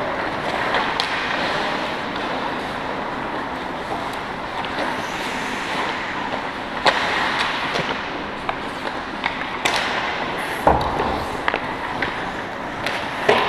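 Ice hockey skates scraping and carving on the ice as a steady hiss, broken several times by sharp clacks of sticks and puck. The loudest knock comes about three quarters of the way through.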